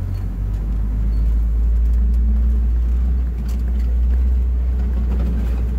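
Safari ride truck driving along, a steady low engine and road rumble with a few light rattles about halfway through.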